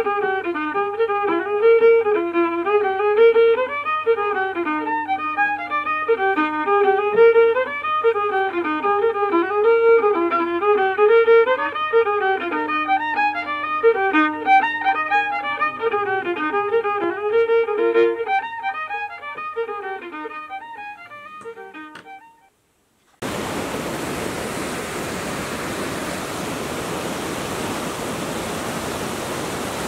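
A fiddle tune played as background music, fading out about three-quarters of the way through. After a brief gap comes the steady rush of a river running over rocky rapids.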